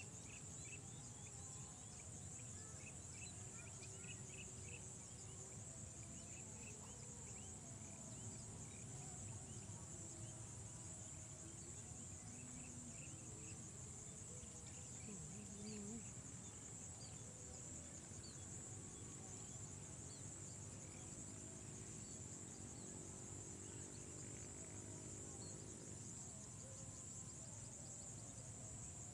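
Faint, steady, high-pitched insect chorus from the grassy waterside, with scattered short chirps in the first half. A faint low hum comes in over the middle to later part.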